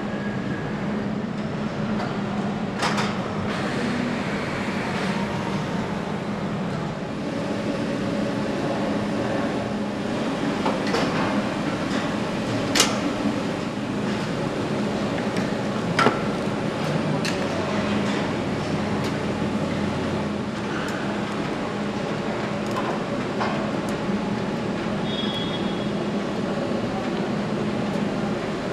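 Motorcycle assembly-line machinery running with a steady hum, with occasional sharp metallic clicks and knocks from tools and parts being fitted.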